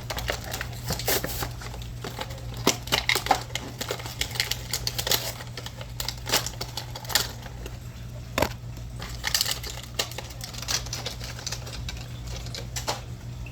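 Plastic blister packaging of a die-cast toy car crinkling and crackling as it is pried and torn open by hand, an irregular string of sharp clicks and crackles over a steady low hum.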